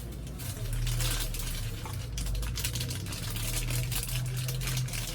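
Packaging and a small auto part being handled: irregular rustling and clicking, over a steady low hum.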